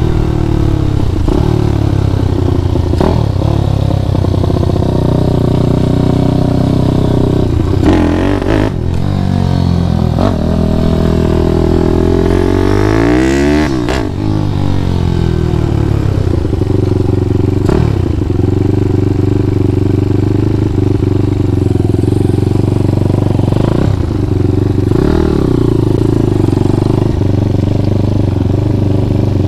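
Grom-clone minibike's small single-cylinder engine running while riding, its revs dropping and picking up again about halfway through.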